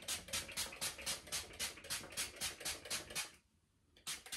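Detangling spray from a small pump spray bottle misting onto hair in quick, even squirts, about five a second. The squirts stop about three and a half seconds in, with one more near the end.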